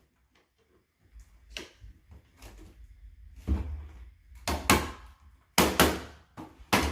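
Hard toy box being handled: a run of knocks and thuds, faint at first, then louder from about halfway, several coming in quick pairs.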